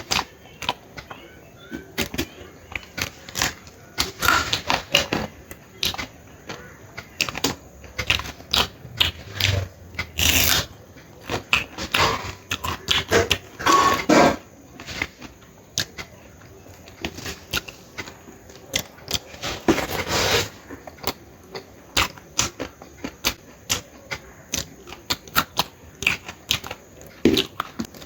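Close-miked eating sounds: chewing and mouth smacking, heard as an irregular run of sharp clicks with a few louder, noisier stretches.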